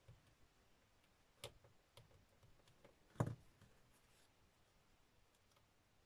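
Quiet handling of small papercraft pieces and a hand tool on a craft mat: a few faint taps and clicks, then one sharper knock about three seconds in as the tool is set down on the mat.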